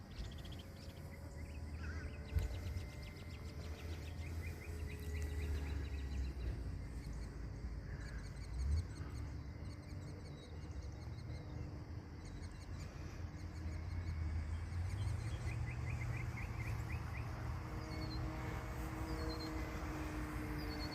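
Outdoor ambience with a low rumble of wind on the microphone and birds chirping in short repeated trills. Under it is the faint hum of a distant electric RC warbird's motor and propeller, drifting slowly in pitch as it flies past; the plane is very quiet.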